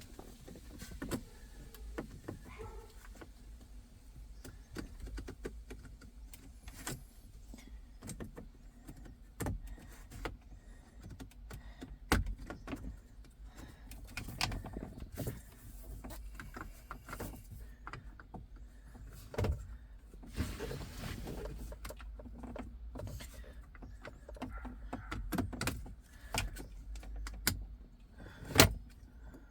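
Scattered clicks, taps and knocks of hands and tools handling car interior parts, with a sharp knock about twelve seconds in and the loudest one near the end, over a low steady hum.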